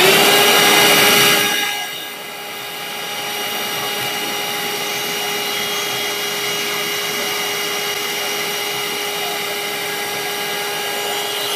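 Parkside 20V cordless handheld vacuum cleaner running with its small crevice nozzle on, sucking up washing powder: a steady motor whine over rushing air, louder and more rushing for the first two seconds, then settling to an even hum.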